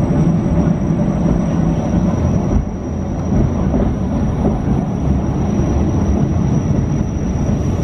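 Matterhorn Gotthard Bahn train climbing the Oberalp line, heard from inside the carriage: a steady running rumble of wheels and car body, with a thin, steady high whine above it.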